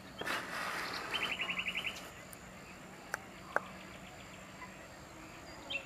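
Mosquitoes whining faintly and steadily around the microphone in a quiet evening outdoor ambience, with a short, fast trill of about ten notes a second between one and two seconds in, and two faint clicks later on.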